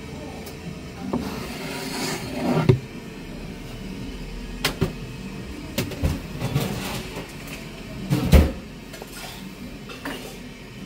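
Irregular knocks and clatter of objects being handled, about four sharp bangs, the loudest about three-quarters of the way through, over a steady low hum.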